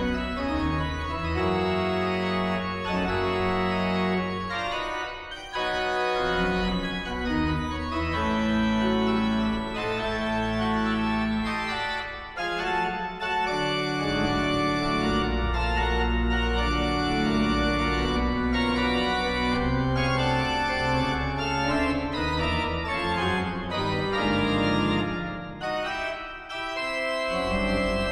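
Church organ playing a loud, full-voiced piece: sustained chords over a deep pedal bass, the harmony moving every second or two, with brief breaks in the sound about five, twelve and twenty-six seconds in.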